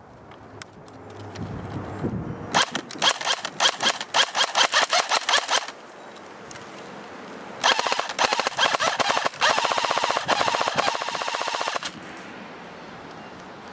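ICS L86A2 LSW airsoft electric gun firing two full-auto bursts, about three and four seconds long, each a fast, even clatter of the gearbox cycling.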